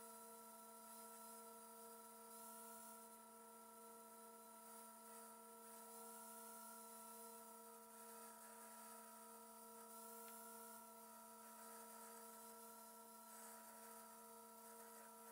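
Near silence with only a faint, steady hum of a few held tones; no grinding is heard.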